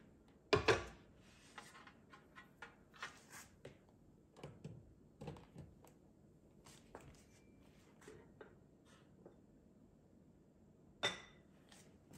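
A small Crock-Pot slow cooker set down on a countertop with a thunk, followed by light knocks and rustles as it is handled. About 11 seconds in, its glass lid is set down with a sharp clink that rings briefly.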